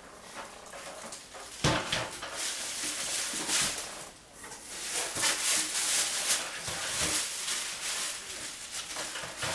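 Cardboard box and packaging scraping and rustling as a stainless steel step trash can is worked out of its box, with a sharp knock a little under two seconds in.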